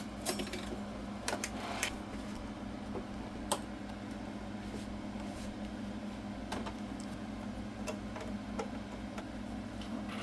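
A handful of sharp clicks and knocks from monitor-mount hardware being handled and fitted, over a steady low hum.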